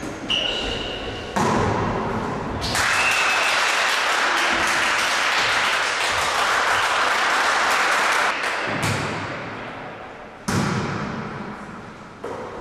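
A volleyball struck hard several times during a rally in a gym hall, each hit a sharp thump with echo, with a brief high squeak near the start. In the middle comes about five seconds of clapping and cheering.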